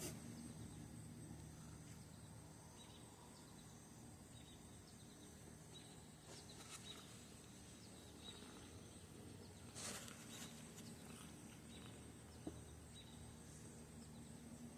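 Near silence: faint outdoor ambience with a steady high thin tone and a low hum, a few soft clicks, and a brief rustle about ten seconds in.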